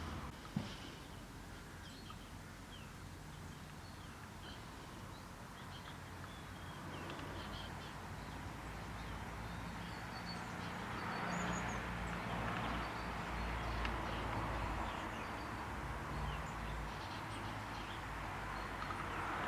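Birds chirping, with many short high calls scattered throughout, over a steady outdoor background noise that grows louder about halfway through. One short sharp sound comes about half a second in.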